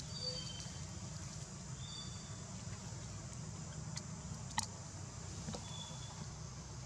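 Outdoor forest ambience: a steady low rumble and a high insect-like hiss, with short, high chirps scattered through and one sharp click a little past halfway.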